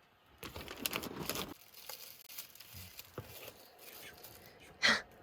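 Rustling, crinkling handling sounds, with a few small clicks and one short, sharp, louder knock near the end.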